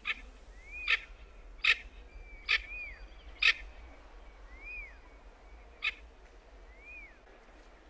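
Bird calls: a short whistled note that rises and falls, repeated about every two seconds, with six loud sharp clicks in the first six seconds and a brief high thin whistle near the middle.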